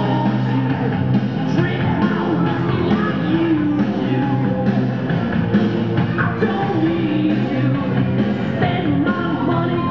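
Loud, steady music with a singing voice over it.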